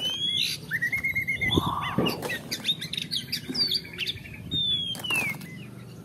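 Several wild birds chirping and calling, with a rapid trill about a second in and a long falling whistle near the end. A few light knocks come from muddy plastic toys being handled.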